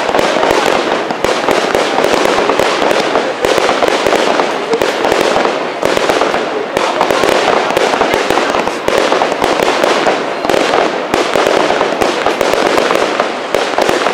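Aerial fireworks bursting in a dense, continuous barrage: many bangs and crackles in quick succession, with no pause.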